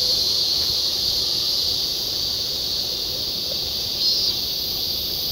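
Steady chorus of insects in the trees, a continuous high buzzing drone, with a short louder chirp about four seconds in.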